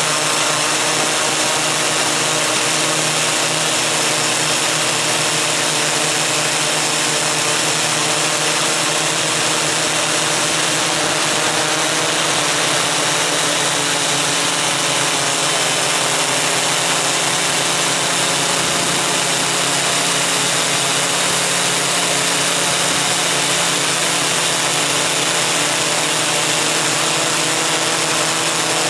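Motors and propellers of a Koax-Quadro X8 coaxial octocopter running steadily in flight, heard from a camera carried on it: a loud, steady whine of several tones over a hiss.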